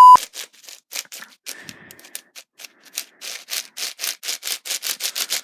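Freshly lubed 9x9 speed cube being turned by hand, its plastic layers scraping and clicking in quick turns several times a second, getting faster after about a second. A short loud beep at the very start.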